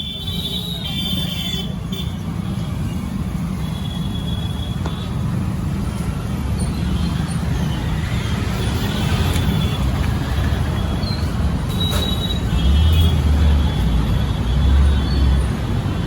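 Street traffic: a steady low rumble of vehicle engines, swelling twice near the end as vehicles pass close.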